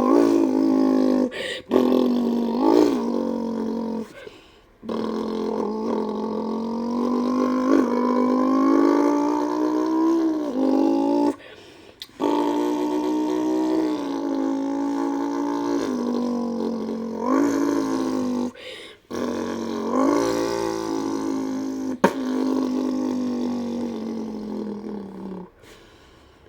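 A kid imitating a BMW E60 M5's V10 engine with his mouth: long held notes that climb and drop in pitch like an engine revving through the gears, broken by a few short pauses for breath.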